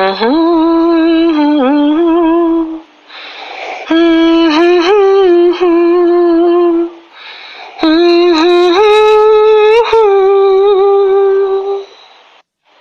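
A person humming a slow melody in three long phrases, each note held with small bends in pitch.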